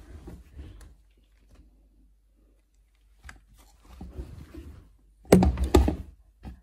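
Damp laundry rustling as it is pulled from a plastic laundry basket and stuffed into a front-loading tumble dryer, with a few loud thunks a little after five seconds in.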